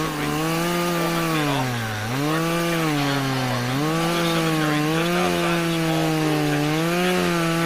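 Chainsaw engine running continuously, its pitch dipping and rising again every second or two as the throttle is worked.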